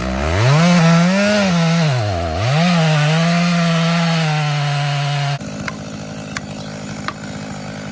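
Chainsaw revving up and cutting into the trunk of a large tree being felled, its pitch dipping once as it bogs down in the cut, then dropping suddenly to idle about five seconds in. A few sharp cracks follow over the idle as the wood at the stump starts to crack.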